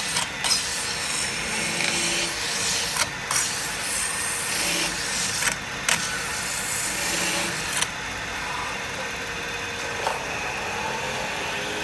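CNC metal spinning lathe running, its forming roller pressed against a spinning sheet-metal workpiece on the mandrel, giving a steady rasping rub. Short louder bursts come every two to three seconds.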